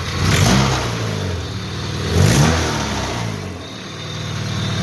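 Car engine given two short throttle blips, rising and falling in pitch, then settling back to a steady idle.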